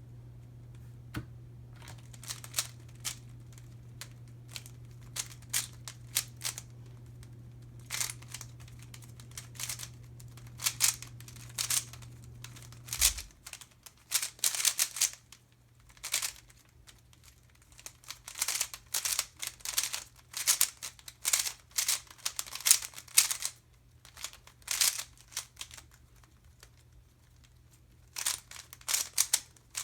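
Rubik's Cube being turned fast in a speedsolve: rapid bursts of clicking plastic layer turns broken by short pauses. A low steady hum underneath drops away about 13 seconds in.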